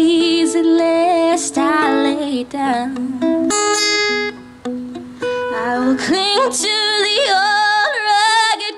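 A woman singing a hymn with a wavering vibrato on long held notes, accompanying herself on acoustic guitar. The voice drops out for about a second midway, leaving only the plucked guitar.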